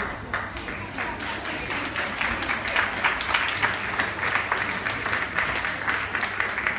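Audience applauding, a dense patter of hand clapping that swells about two seconds in and keeps going.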